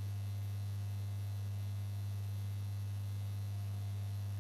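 Steady electrical mains hum: a constant low tone with a fainter overtone above it.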